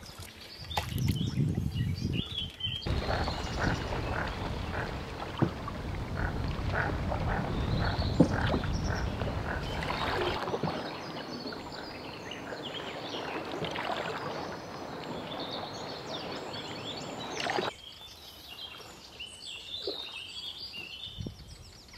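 Animal calls from the bank, repeated many times, with bird chirps higher up over the last few seconds.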